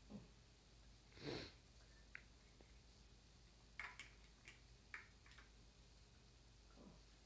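Near silence in a small room, with one short breathy sniff about a second in. Later come a few soft, sharp clicks of large plastic building blocks being handled and pressed together.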